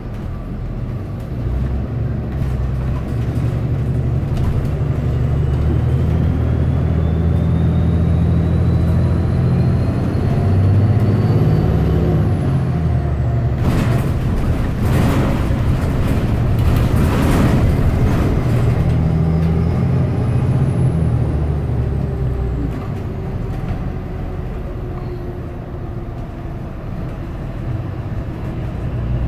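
City bus running, heard from inside the cabin: a steady low engine drone with a faint high whine that rises in pitch as it gathers speed. A few seconds of air hiss come in about halfway through.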